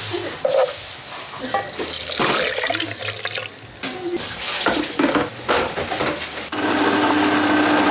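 Water running and splashing, as from a tap into a sink or pot: uneven gushes at first, then a steady stream near the end.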